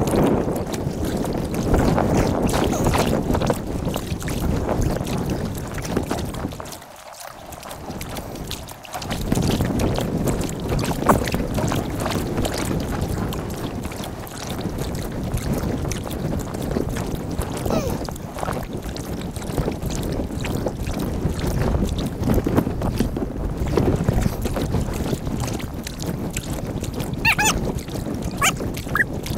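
Sped-up time-lapse sound of kayak paddling: water splashing and dripping from paddle strokes under a steady rumble of wind on the microphone, with a short quieter spell about a third of the way in and a few brief high chirps near the end.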